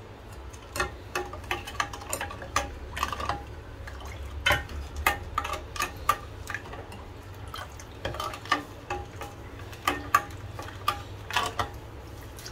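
Steel ladle stirring a thin liquid in a stainless steel saucepan, clinking and scraping against the pan's sides and bottom in irregular taps a few times a second, over a low steady hum.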